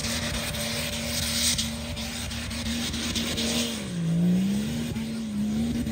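BMW M57 inline-six turbodiesel in a Jeep Cherokee XJ, held at high revs under load as the wheels spin up a snowy slope. The revs hold steady, then drop and pick up again a couple of times over the last two seconds.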